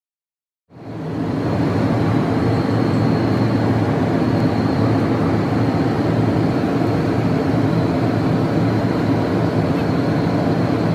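Jet airliner cabin noise in flight: a steady, loud drone with a faint high whine on top, starting abruptly just under a second in.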